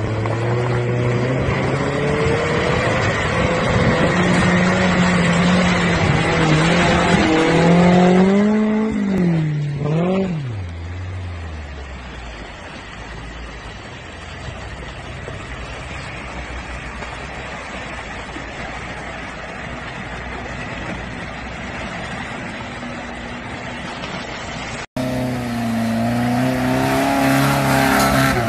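Off-road 4x4 engine revving hard under load, its pitch swinging up and down about nine to ten seconds in, then dropping to a lower, steadier run. Near the end the sound cuts off abruptly and a different engine comes in, revving.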